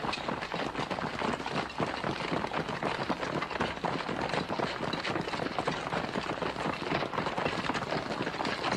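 A steady, rough hiss of gas rushing out of a pipe, with a fine crackling texture and no let-up.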